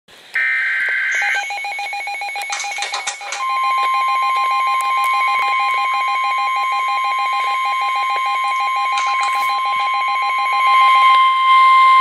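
NOAA weather radio going off for a severe thunderstorm warning: a short warbling burst of data tones, then the radio's rapid alert beeping at about eight beeps a second, joined about three seconds in by the steady warning alarm tone. The beeping stops about a second before the end, leaving the alarm tone.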